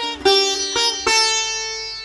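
Background music on a plucked string instrument: a slow melody of three plucked notes with pitch slides, the last one ringing out and fading.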